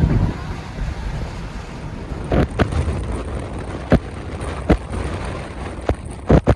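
Low vehicle road and wind rumble that eases after about two seconds, then a string of sharp clicks and knocks, about seven in all, two of them close together near the end.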